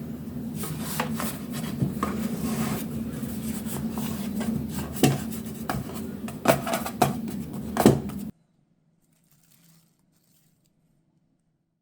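Kitchen clatter: a series of sharp clicks and knocks of utensils and dishes over a steady low hum, cutting off abruptly about eight seconds in.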